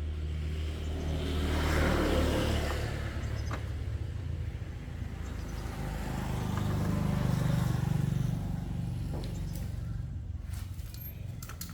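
Motor vehicles passing by: a rush of noise that swells and fades about two seconds in, then a low engine drone that builds and dies away between about six and eight seconds.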